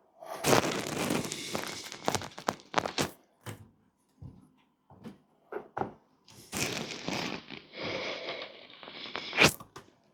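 A heavy door being shuffled and tipped into position by hand: two stretches of scraping and shuffling with footsteps, scattered knocks in between, and a sharp knock near the end.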